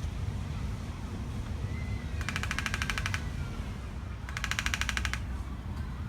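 Woodpecker drumming: two fast rolls of strikes, each about a second long, over a steady low rumble.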